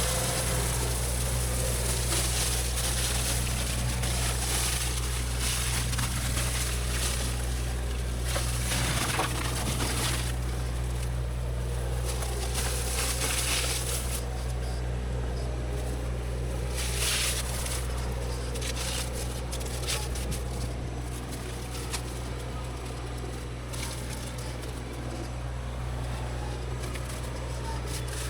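Diesel engine of heavy land-clearing machinery running at a steady speed, with a hiss on top that comes and goes.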